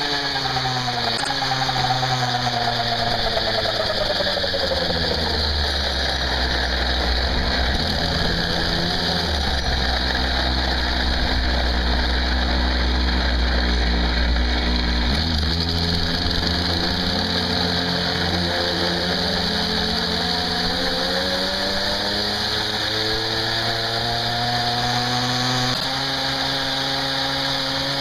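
Goped GSR 25 scooter's small two-stroke engine running close to the onboard camera. Its pitch falls over the first several seconds as it slows, stays low through the middle, then rises again as it speeds up in the second half, dropping slightly near the end.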